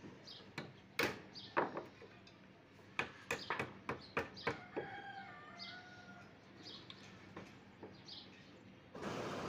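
Irregular knocks and taps on timber stair shuttering planks as they are hammered and fitted into place. A rooster crows faintly in the background about halfway through, with small bird chirps.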